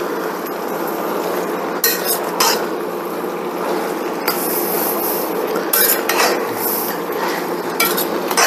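A cooking utensil stirring and tossing chow mein noodles in a pan, scraping and clinking against the metal several times over a steady hiss from the frying.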